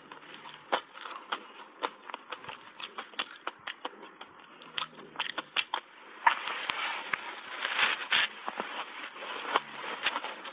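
Close-miked chewing of refrozen shaved ice dusted with matcha powder: sharp crunches and cracks as the ice breaks between the teeth. The crunching becomes denser and louder about six seconds in, as a fresh spoonful is bitten.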